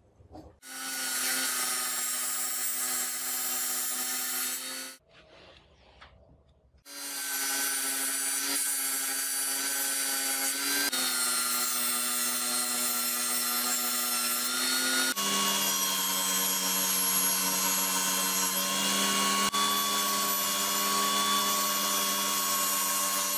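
Table saw running and ripping white melamine-faced board, a steady motor whine with a hiss from the cut. A short cut stops after about four seconds, and after a break of about two seconds a long cut runs on, its pitch stepping down twice as it goes.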